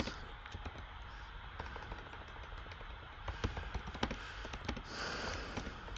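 Computer keyboard typing: faint, irregular key clicks.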